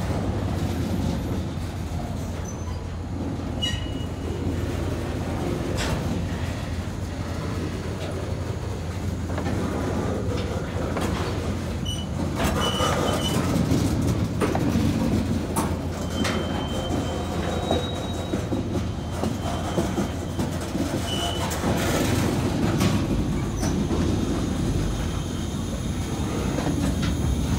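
Loaded freight cars, four-bay covered hoppers, rolling past on jointed track: a steady low rumble of wheels with scattered clicks and knocks, and short high-pitched wheel squeals a few times.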